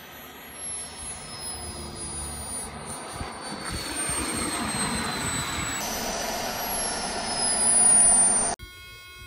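A model jet turbine in an RC F-16 makes a thin high whine that slowly drops in pitch over a rushing jet noise. The noise grows louder and is loudest a little before it cuts off suddenly near the end. After the cut there is a steady electrical hum.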